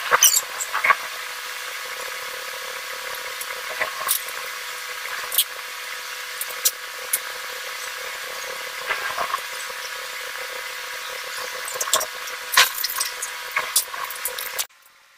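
Scattered light clicks and knocks from hands working on a ceiling-hung projector box and its freshly fitted outlet, over a steady hum. The sound cuts off suddenly near the end.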